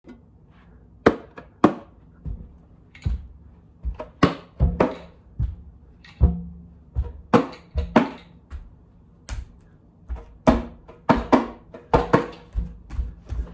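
Irregular knocks and thumps, one or two a second, from a cuica friction drum being handled, its drum head and body bumped as it is carried, with a few knocks trailing a short low ring.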